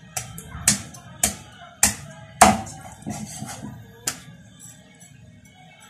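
Cleaver chopping through raw chicken pieces on a chopping block: about seven sharp chops roughly half a second apart, the loudest about two and a half seconds in, stopping after about four seconds.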